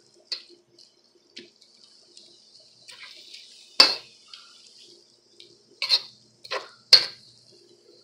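Metal spatula knocking and scraping against a wok while stir-frying fried rice with egg and bean sprouts: about six clanks, the loudest about halfway through, over a faint steady sizzle.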